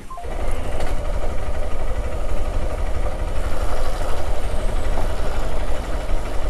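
Motorcycle engine running at a steady idle, a low, even pulsing that comes in suddenly just after the start.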